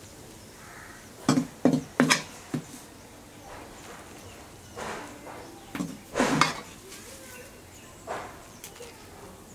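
A metal spoon scraping and knocking against a ceramic plate as it spreads out a dry banana-flower stir-fry: a few short clatters about a second in, then more around six seconds in.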